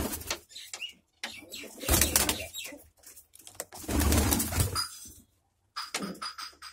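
Domestic pigeons cooing in wooden nest boxes, with several short bursts of wing flapping and rustling.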